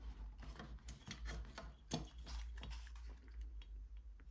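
Irregular light clicks and taps from the open metal chassis of a homemade nixie clock being picked up and tilted by hand, with one sharper knock about two seconds in.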